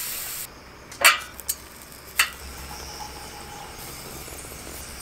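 Metal tongs clicking against the steel mesh of a small charcoal grill as slices of beef are laid on it, a few sharp clicks in the first couple of seconds. Near the end, a faint rustle of salt poured from a bottle into a small steel cup.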